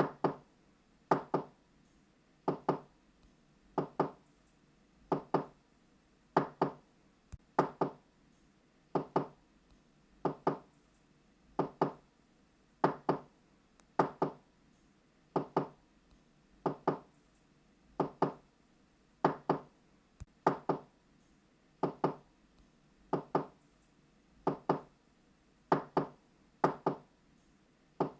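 Knocking on a door in quick double knocks ('knock-knock'), repeated steadily about every 1.3 seconds.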